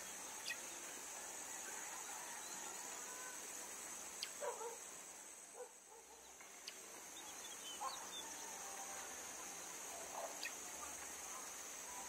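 Faint outdoor ambience: a steady high-pitched hiss or insect drone, with a few short distant bird calls and light ticks scattered through.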